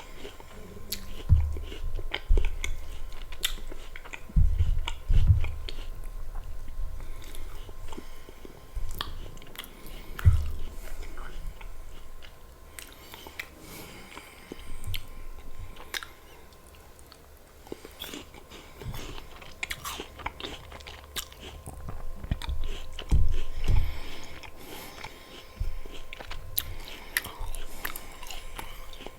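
Close-miked eating: crunchy bites into apple with peanut butter, and wet chewing in between. A few heavier bites land as low thumps, two clusters of them near the start and one near the end.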